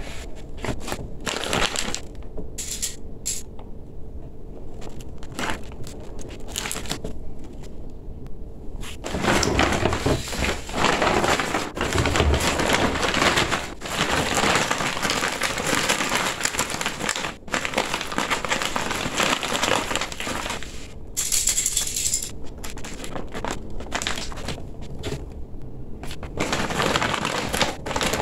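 Stiff, shiny gele head-tie fabric crinkling and rustling as hands fold, pleat and tuck it on a mannequin head. The rustles come in short separate bursts at first, then run almost without a break from about nine seconds in.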